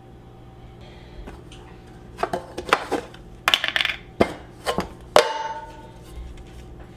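Metallic clinks and clatter of a stainless-steel reusable coffee filter cup being handled at a single-serve coffee maker. Several quick clicks and knocks come one after another, with the loudest clank a little past five seconds in, ringing briefly.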